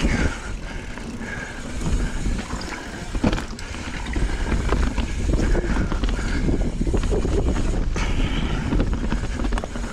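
Knolly mountain bike riding fast down a dirt singletrack: tyre noise and drivetrain rattle, with irregular sharp knocks as it goes over bumps. Wind buffets the camera microphone throughout.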